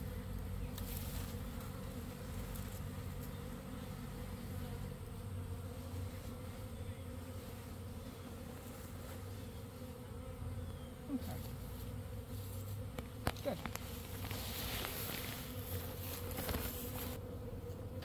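Honey bee swarm buzzing steadily, the cluster sitting on a cut branch laid over a hive box. Partway through there are a few light knocks and cloth rustling as a sheet is spread over the cluster.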